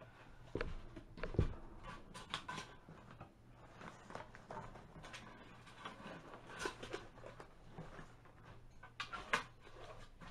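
Hands wrapping and tightening galvanized wire around a stack of wooden boards and paper: irregular scrapes, rustles and clicks of wire and material being handled, with two dull thumps about half a second and a second and a half in.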